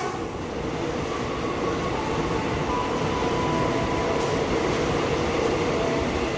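Railink airport electric train (EA203 multiple unit) running past along the platform, a steady rumble of wheels on rails with faint whining tones that shift in pitch over it.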